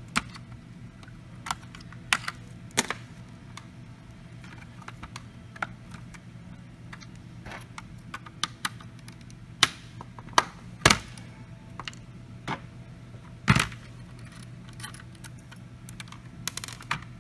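Irregular clicks and light knocks of small computer hardware being handled as the SO-DIMM RAM module is unclipped and lifted out of a mini PC's motherboard, with two louder knocks in the second half, over a faint steady hum.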